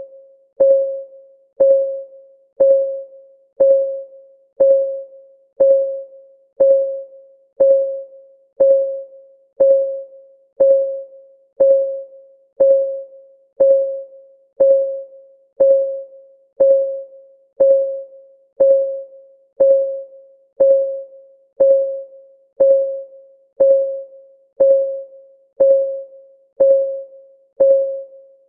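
Countdown timer's ticking: a short, pitched tick once a second, each one fading quickly, in a steady even rhythm.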